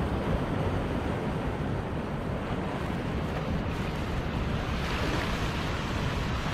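Sea surf washing and breaking over rocks at the foot of a rock ledge, with wind rumbling on the microphone. The wash swells a little about five seconds in.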